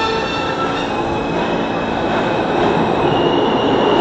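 R160 subway train pulling out of the station, its running noise growing louder as it picks up speed. A high steady tone joins in about three seconds in.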